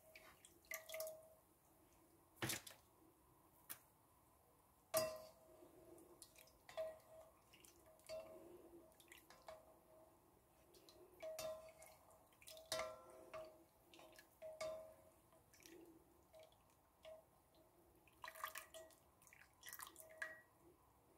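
Sugar syrup dripping faintly off a black slotted spoon back into an enamelled pot as cardamom shells are scooped out, with a few sharp taps of the spoon against the pot.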